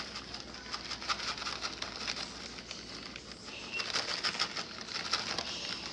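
Faint crinkling of a plastic bag of shredded cheese being shaken, with scattered light ticks as the shreds fall onto the dough.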